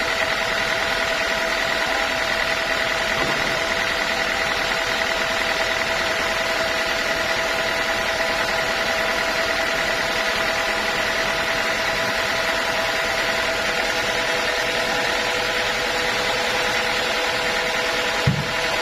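Sawmill machinery running steadily, with a constant whine over a hiss, and a single short knock near the end.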